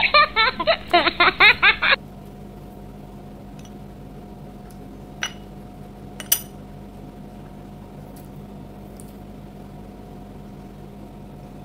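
A loud, pitched, rapidly pulsing sound clip edited in over the first two seconds, cutting off abruptly. After it, a steady low room hum with two short clicks about five and six seconds in.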